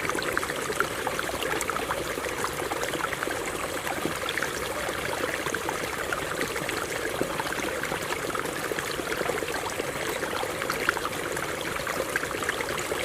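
Water running over rocks in a stream: a steady rushing babble full of many small splashes.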